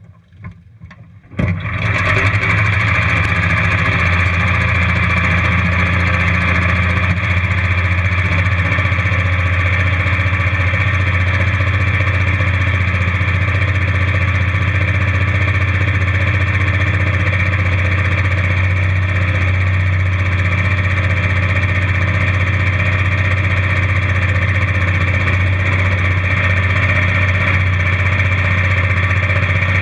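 A racing lawnmower's small engine starts suddenly about a second and a half in and then idles loudly and steadily, with no revving.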